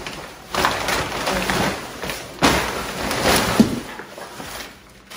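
Cardboard box and brown packing paper rustling and scraping as they are pulled away from a large potted plant, with its leaves brushing. The noise comes in uneven bouts with a few sharper knocks and dies down near the end.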